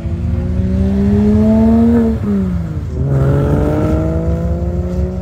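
Car engine accelerating hard: the pitch climbs for about two seconds, drops on an upshift, then climbs again in the next gear.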